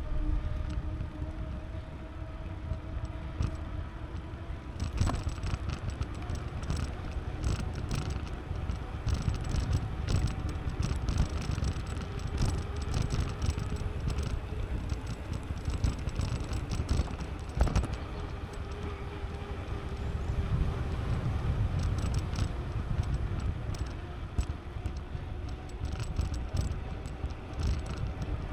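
Bicycle being ridden: steady rolling rumble from the tyres and wind on the microphone, with scattered light rattles and clicks from the bike.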